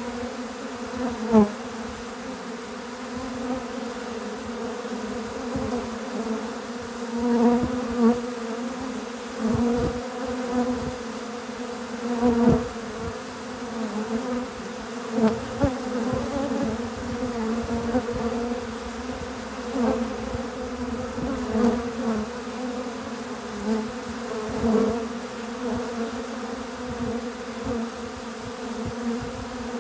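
Many honey bees crowding a feeder, buzzing together in a dense, steady hum. Every few seconds a single bee passes close by in a brief, louder buzz that swells and slides in pitch.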